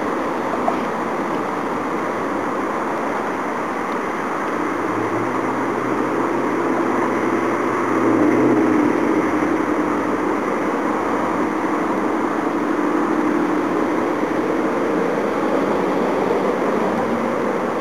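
Steady rumble of traffic or a passing train, with a low droning hum that swells about five seconds in, is loudest about eight seconds in, and fades again near the end.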